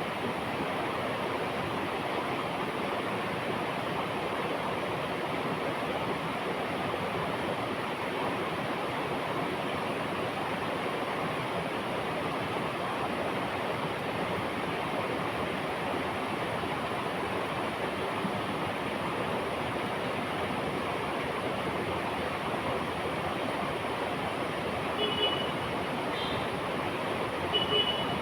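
River water flowing steadily over rocks, an even rushing sound. A couple of short, high chirps come in near the end.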